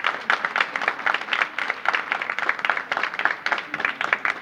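Crowd applauding: many people clapping their hands in a dense, steady patter.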